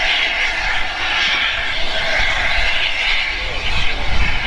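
LNER A4 Pacific steam locomotive no. 60009 'Union of South Africa' standing with steam up, giving off a loud, steady hiss of escaping steam.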